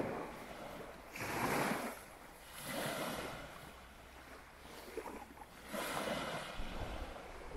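Sea surf washing in strong wind, a broad rush that swells and ebbs every second or two. Low wind buffeting on the microphone comes in near the end.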